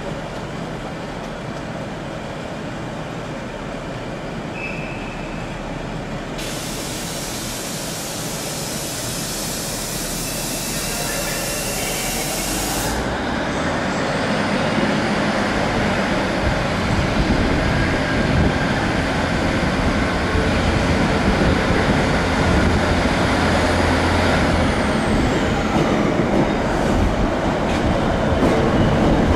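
Class 156 Sprinter diesel multiple unit with Cummins diesel engines running at a platform. A steady hiss lasts about six seconds, then the engines grow louder from about halfway through as the unit pulls away toward the listener.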